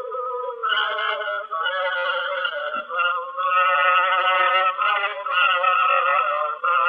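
Old, narrow-band recording of Egyptian classical Arabic music from a wasla: a high, ornamented melody line in long, wavering notes, with short breaks between phrases.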